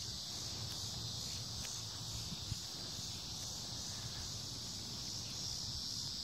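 Steady, high-pitched chorus of insects trilling, over a faint low rumble.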